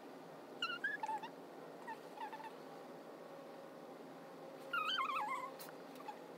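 High, wavering squeaks from a small animal, in three short bouts: about half a second in, around two seconds, and a louder one near five seconds. A single sharp click follows the last bout.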